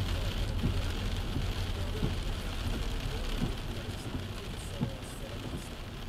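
Rain pattering on a car's roof and windscreen, heard from inside the cabin, over the low rumble of the car driving slowly on a wet road, with single drops plinking now and then.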